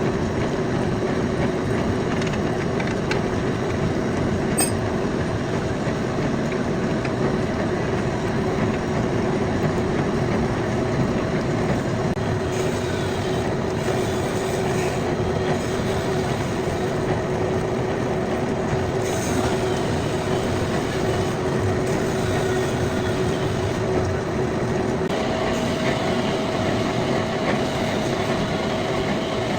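Metal lathe running and turning a metal pulley: a steady, loud machining noise with a continuous hum and no breaks.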